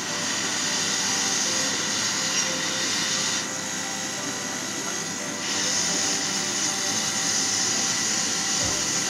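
Hot air rework gun blowing a steady airy hiss onto a motherboard, reflowing solder to mount a replacement MOSFET. The upper part of the hiss dips for about two seconds near the middle.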